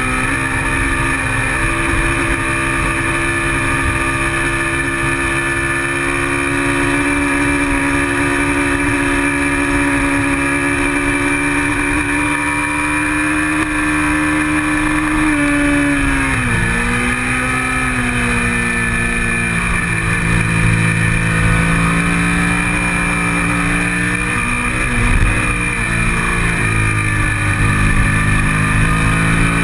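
Kawasaki Ninja 650R's parallel-twin engine running hard at high revs under race load, with wind buffeting the bike-mounted microphone. About halfway through the revs drop in a few steps as it downshifts, then climb steadily as it accelerates out of the corner.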